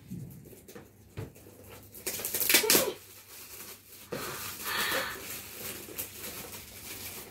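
Shiny gift wrap crinkling and tearing as a present is unwrapped by hand, in crackly bursts, loudest about two and a half seconds in.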